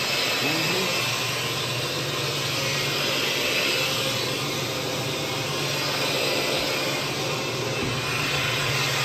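Carpet-cleaning equipment running steadily: a continuous vacuum-like rush over a constant low hum.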